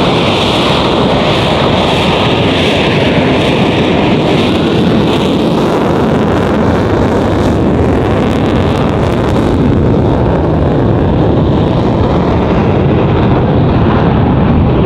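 A twin-engine F/A-18 Hornet making a loud jet pass, its engines running in afterburner: a heavy, steady rush of noise. A faint tone slides down in pitch over the first few seconds, and the hiss fades about ten seconds in as the jet moves away.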